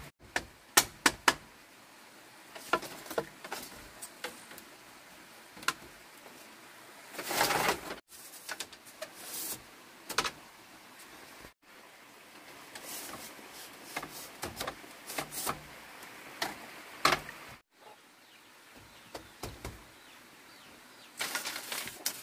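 Split bamboo strips clacking and knocking against each other and the coop's bamboo frame as they are handled and fitted into the wall, with a longer rustle of bamboo strips about seven seconds in and again near the end as a bundle of strips is gathered up.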